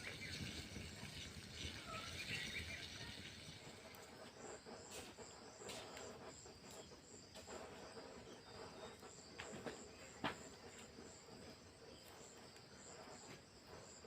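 Faint insect chirping: a high-pitched pulse repeating about three times a second, joined a few seconds in. A few sharp clicks or knocks sound over it, the loudest about ten seconds in.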